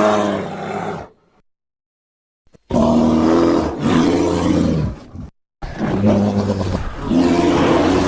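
Imitation Heisei-era Godzilla roars: one roar ends about a second in, and after a pause of silence two long, low roars follow, the second starting about five and a half seconds in.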